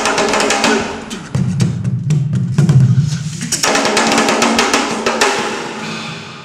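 Drum-led music: rapid strokes on drums and percussion, fading out near the end.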